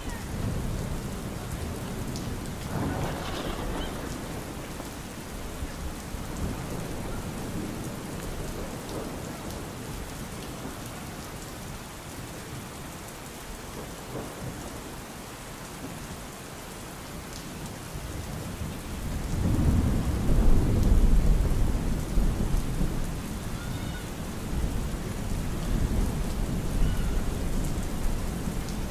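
Steady rain falling, with thunder rumbling. A louder low rumble of thunder builds about two-thirds of the way through and dies away slowly.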